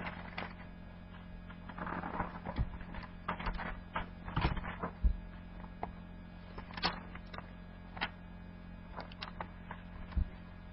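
Thin Bible pages being leafed through to find a passage: a scattered run of short, irregular rustles, flicks and taps over a steady low hum.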